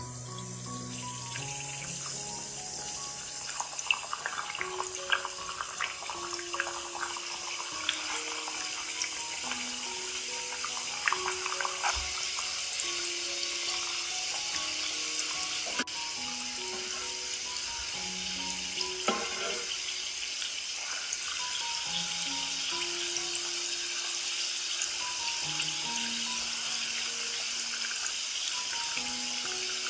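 Breaded potato-and-mozzarella balls frying in shallow oil in a nonstick pan: a steady sizzle and crackle of bubbling oil that grows as more balls go in, with a few sharp clicks.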